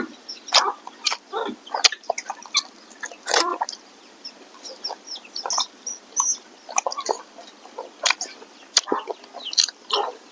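Close-up mouth sounds of someone chewing smoked pork: irregular wet smacks, clicks and crunches.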